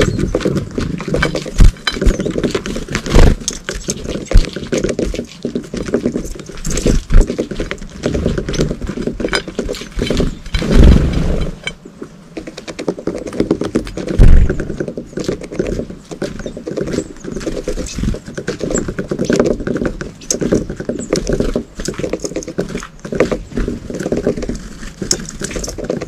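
Great tits and blue tits pecking at fat balls on a ceramic plate: rapid, irregular tapping and clicking, with a few louder low thumps.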